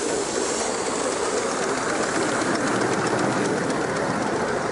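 Miniature live-steam locomotive running close past, a steady rush of steam from the engine mixed with its wheels running on the rails.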